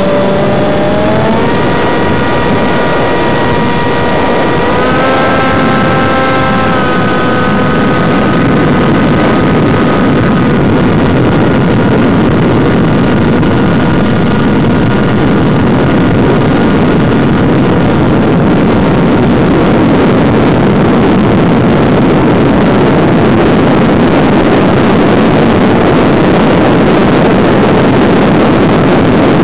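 Small electric RC plane's motor and propeller running, its pitch stepping up twice in the first few seconds as the throttle changes. The tone then fades into a steady loud rush of airflow and propeller noise.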